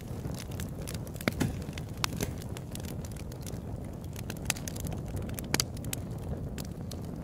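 Crackling fire: irregular sharp pops and snaps over a low steady rumble, the loudest pops about a second in and again past five seconds.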